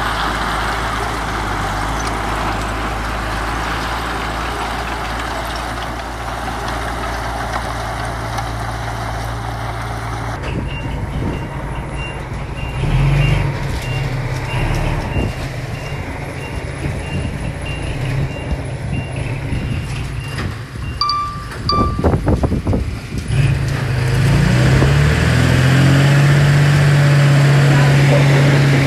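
Heavy diesel earthmoving machinery at work: an engine running steadily, joined from about ten seconds in by the steady repeating beep of a reversing alarm. Near the end the engine revs up and holds a higher, louder note under load.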